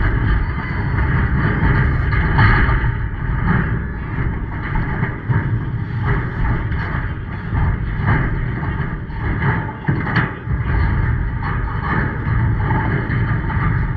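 Wind buffeting the microphone: a loud, steady low rumble and rush that swells and dips irregularly.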